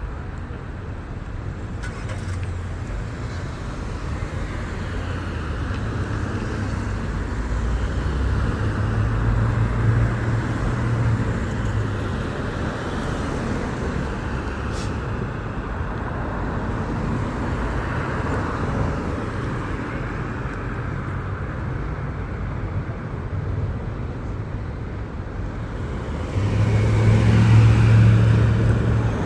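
City street traffic: a steady run of cars and other vehicles passing, with a louder engine passing close by near the end.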